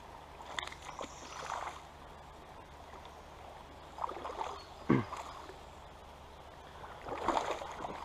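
Shallow creek water splashing and sloshing in short bursts as a hooked smallmouth bass is brought in, with scattered small clicks and one sharp knock about five seconds in.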